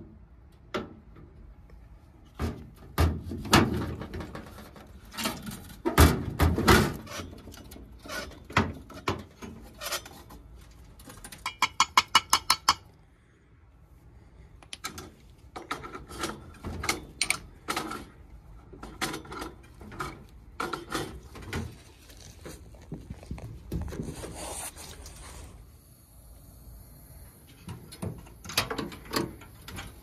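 Irregular knocks, clicks and rattles of hand tools on a gas boiler's sheet-metal cabinet, burner and controls. About twelve seconds in comes a quick run of about ten sharp clicks, and a faint high hiss comes in near the end.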